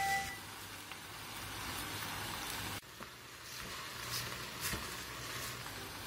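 Kimchi, pork and radish sizzling in a hot earthenware pot, a steady hiss. Stirring with a silicone spatula adds a few light scrapes. About three seconds in, the sound drops sharply and picks up again.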